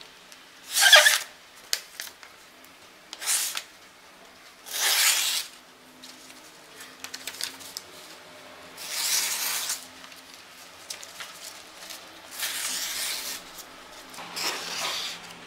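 Tanto dagger blade slicing down through a hand-held sheet of paper, six cuts a few seconds apart, the loudest about a second in. It is a sharpness test of the blade as received: it cuts, though it is not yet fully sharp.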